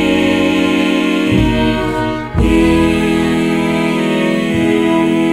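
Live song: a male voice holds long sung notes over acoustic guitar accompaniment, with a short break about two and a half seconds in before the next held note.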